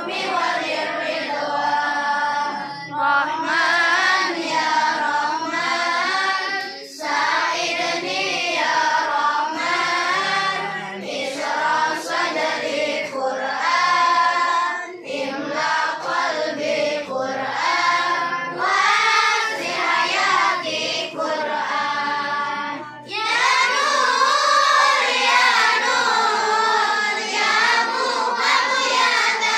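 A group of children singing sholawat, Islamic devotional songs praising the Prophet, together in unison. About three-quarters of the way through, the singing breaks off and a group of boys' voices takes over.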